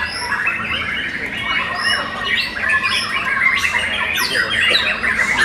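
Young white-rumped shamas singing, several birds at once, in a dense unbroken mix of whistled notes, trills and quick gliding phrases.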